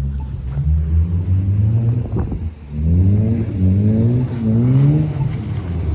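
Car engine revving: its pitch climbs slowly over the first couple of seconds, drops, then climbs three more times in quick succession.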